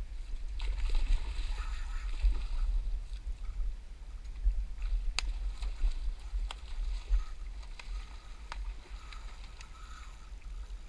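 Wind rumbling on the microphone over moving river water, with a few sharp clicks and splashing as a hooked sockeye salmon thrashes at the surface.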